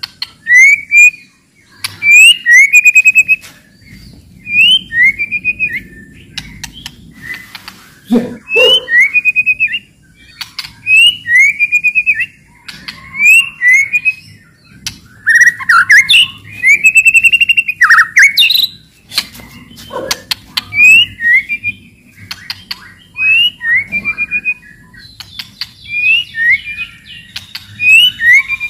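White-rumped shama (murai batu) singing loudly: short, repeated whistled phrases, one every second or so, broken up by sharp clicking rattles, the 'cetrekan' calls used to provoke other shamas.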